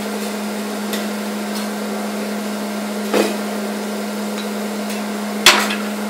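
A few sharp metal clanks of a hibachi chef's spatulas striking the teppanyaki griddle, the loudest near the end. Under them runs a steady hum from the grill's exhaust hood.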